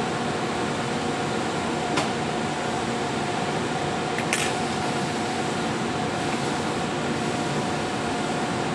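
Steady hum of factory machinery and ventilation with a constant whine through it. Two short sharp clicks, about two seconds in and just after four seconds.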